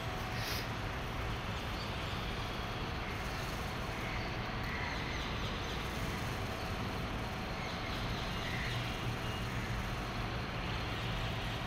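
Steady ambient background noise: an even rumble and hiss with a faint steady hum and a few faint high chirps.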